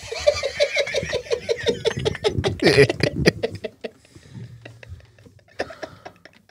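Laughter: a run of quick ha-ha pulses, about six a second, for roughly three and a half seconds, then trailing off into quieter chuckles.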